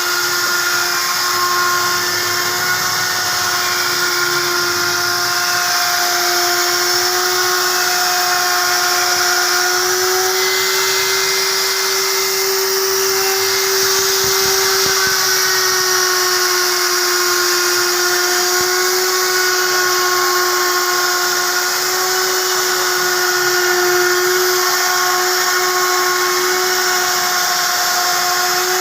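Wood router running at high speed with a steady whine over a hiss; the pitch rises slightly for a few seconds midway, then settles back.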